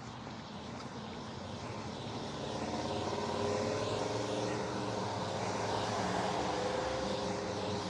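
A steady engine drone that swells over the first few seconds and then holds, heard over the hiss of traffic on a wet road.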